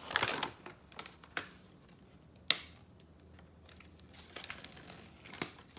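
Plastic wrapping on an L.O.L. Surprise ball crinkling and tearing as it is peeled off by hand, with one sharp snap about two and a half seconds in.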